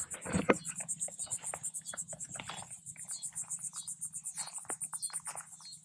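Cicadas buzzing with a steady, fast pulsing, over irregular crackles of footsteps through dry grass and brush; one louder crunch comes about half a second in.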